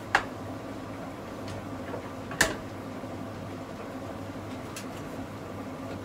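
Hands working the fittings of a washing-machine drain trap, giving a click at the start and a sharper, louder click about two and a half seconds in, with a few faint ticks, over a steady low hum.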